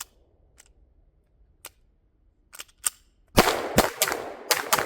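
A rapid string of about five pistol shots beginning about three and a half seconds in, each cracking out with a short echo. It follows a few faint, sharp clicks.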